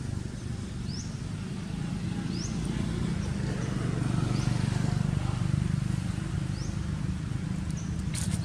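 Outdoor ambience: a steady low rumble with a short, high rising chirp repeating every second or two, and a brief click near the end.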